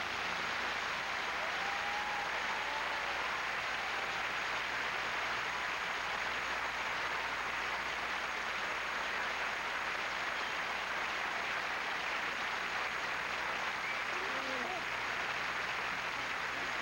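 Studio audience applauding steadily, with a few faint voices heard among the clapping.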